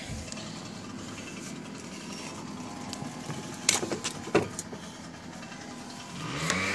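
Steady background noise from a gardener's power equipment next door, with two sharp knocks a little past halfway, and a motor rising and falling in pitch near the end.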